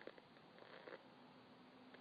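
Near silence: a faint steady hiss with a soft, brief rustle just under a second in and a faint steady hum in the second half.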